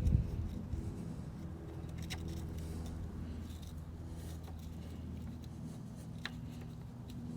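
A few faint clicks of small metal parts being handled as a motorcycle footrest is fitted, over a steady low hum.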